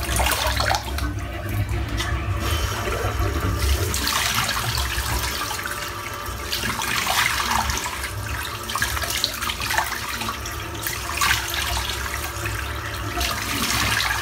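Bathroom tap running into a sink, with intermittent splashing as water is scooped up in rinsing after a wet shave.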